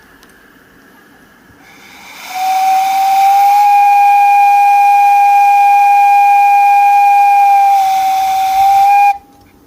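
Steam whistle of a 5-inch gauge live steam locomotive blown in one long, loud blast of about seven seconds: a rush of steam hiss, then a steady high note that stops suddenly near the end.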